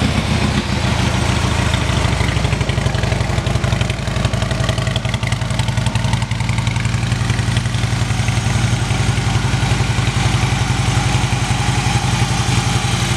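2015 Harley-Davidson Street Glide Special's V-twin idling steadily through its aftermarket Rinehart exhaust.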